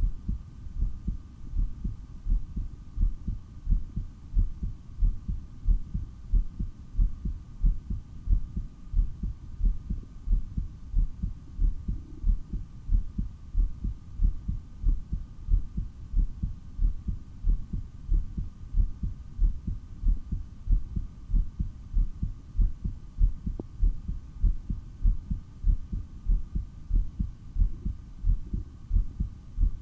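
Human heartbeat heard through a stethoscope: a steady, regular pounding of low thumps, taken during a long breath-hold. A faint steady hum sits beneath it.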